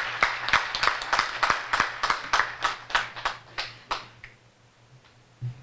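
Applause: many separate hand claps from a group of people, thinning out and dying away about four seconds in.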